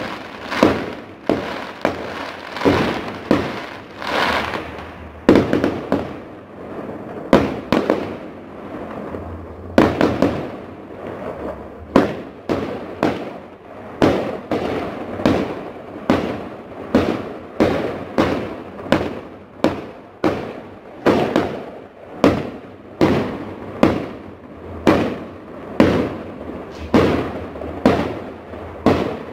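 Aerial fireworks going off in a continuous barrage: sharp bangs, about one to two a second, each trailing off before the next.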